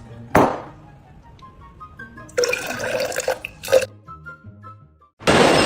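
Background music with quiet steady notes, over which come a short loud sweep about half a second in, a noisy clattering stretch in the middle with a sharp hit near its end, and a loud steady rushing noise that starts abruptly near the end.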